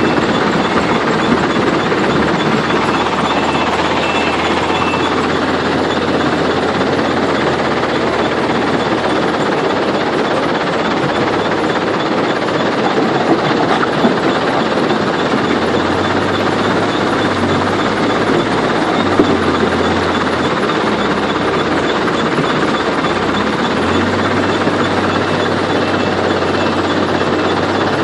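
Heavy machinery running with a loud, steady clatter and rumble. A low engine hum underneath shifts up and down several times in the second half.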